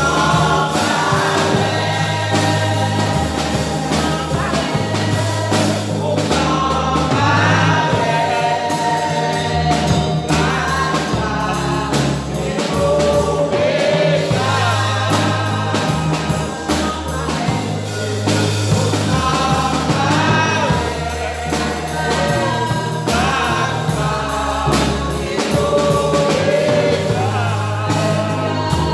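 Live gospel worship song: a woman leads on a microphone with backing singers joining, over a band accompaniment with a steady beat and a moving bass line.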